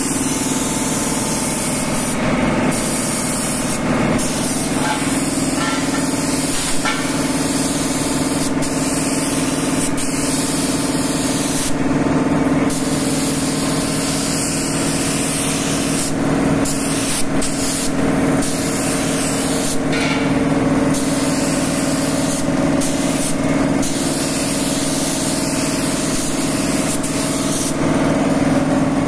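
Compressed-air paint spray gun hissing in long passes, the hiss dropping out briefly every few seconds as the trigger is let off. Underneath is the steady hum and fast regular pulsing of a piston air compressor running.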